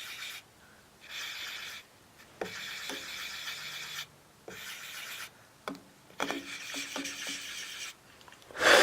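Marking strokes rubbed across the surface of a rough cast iron casting to prepare it for hole layout: a run of scratchy strokes, each lasting from under a second to about two seconds, with short pauses between them. A brief loud knock comes right at the end.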